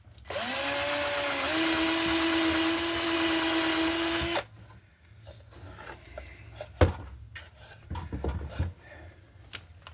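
Power drill driving an exterior screw into pine board for about four seconds: the motor spins up, shifts pitch once partway through, then stops suddenly. Then come a few knocks and clicks of wood and tool being handled, with one sharp knock a few seconds later.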